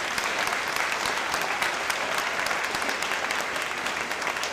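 An audience applauding steadily: a dense, even patter of many hands clapping.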